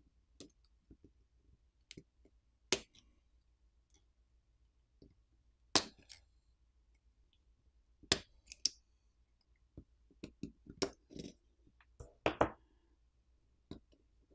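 Scattered sharp clicks and taps of a plastic pry pick working the flex-cable connectors on a smartphone's subboard, loosening the cables. The clicks come singly at first and then in a quicker cluster near the end.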